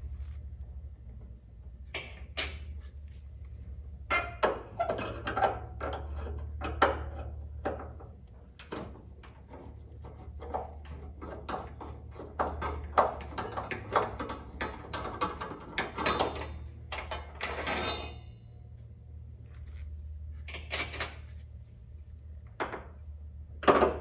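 Phillips screwdriver backing long screws out of a car's metal turn-signal housing: runs of small metallic clicks and scrapes with short pauses between them, then a few separate knocks, the loudest near the end.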